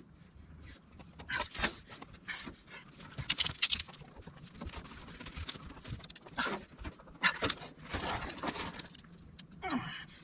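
Scattered clicks, clinks and knocks of plumbing fittings and tools being handled, busiest in the second half, with a short falling whine near the end.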